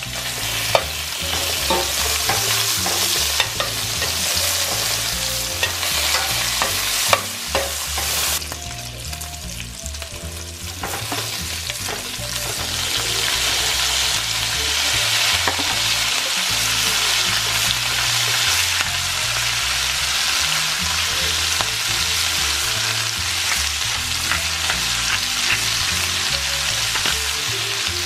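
Bacon frying in a stainless steel pan, sizzling, with a metal slotted spatula clicking and scraping against the pan as the pieces are stirred. About twelve seconds in, shredded cabbage goes into the hot bacon fat and the sizzle becomes louder and steadier.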